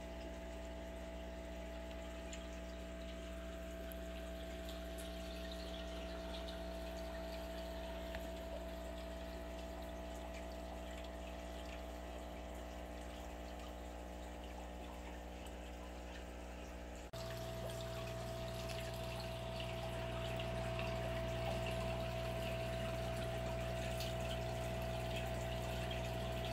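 Aquarium filter pump running: a steady motor hum with water trickling. About two-thirds of the way through, the hum switches abruptly to a different, slightly louder one from another tank's filter.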